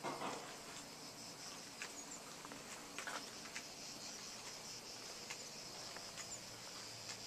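Steady high-pitched chorus of summer insects shrilling in the countryside. A brief rustle or knock comes right at the start, and a few faint clicks are scattered through.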